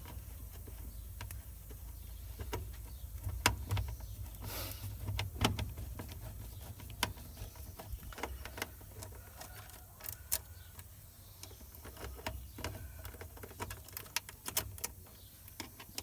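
Screwdriver working a screw terminal in a refrigerator's plastic wiring junction box: irregular small clicks, ticks and scrapes of metal on the screw and of the plastic block being handled, over a low steady rumble.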